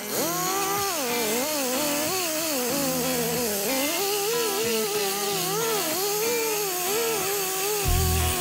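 Small angle die grinder with a sanding disc running on welded sheet steel, its whine rising and falling irregularly as it is pressed onto and eased off the weld seam while the weld is sanded flush.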